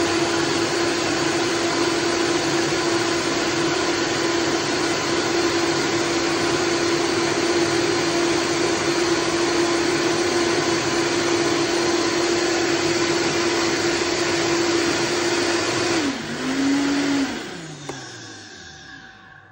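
Vitamix blender motor running steadily at high speed with a strong whine. About sixteen seconds in its pitch drops, holds briefly, then the motor slows and winds down to a stop near the end.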